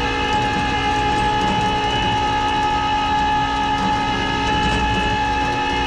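Flatbed tow truck's hydraulic winch and pump whining steadily, with the truck's engine running underneath, as the winch pulls a disabled pickup up the bed.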